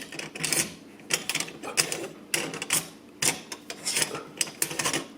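Irregular clicks and short scraping rasps of kitchen sink drain parts being fitted together and tightened just enough to hold them in place.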